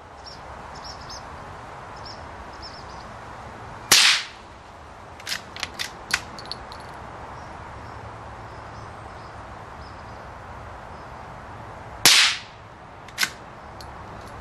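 Two shots from a Browning T-Bolt straight-pull .22 LR rifle firing high-velocity rounds, about eight seconds apart. A quick run of metallic clicks follows the first shot as the bolt is cycled, and a single click follows about a second after the second.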